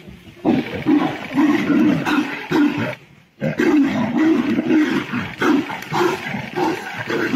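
Two tigers fighting, snarling and roaring in rough, repeated loud bursts. There is a short break about three seconds in.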